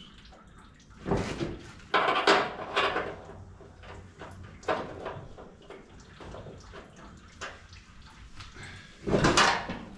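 Intermittent clunks and scrapes of tools and metal parts being handled during disassembly work, the loudest about nine seconds in.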